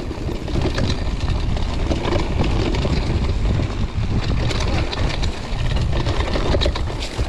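Mountain bike rolling fast down a dirt single track: a steady rumble of tyres and wind on the camera microphone, with frequent small rattles and clicks from the bike over bumps.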